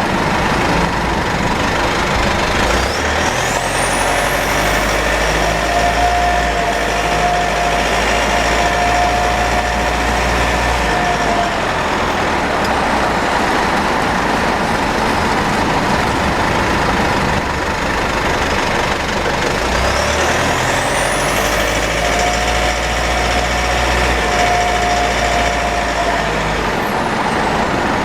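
Mitsubishi 4N15 diesel pickup driving, with loud running and road noise. Twice, about five seconds in and again past the twenty-second mark, a steady mid-pitched whine rises out of the noise for several seconds, each time preceded by a faint rising high whistle as the engine picks up. This is the 'EEeeee' drivetrain whine that dealer repairs never cured; the owner links it to an overfilled rear differential, burnt front differential oil and low automatic transmission fluid.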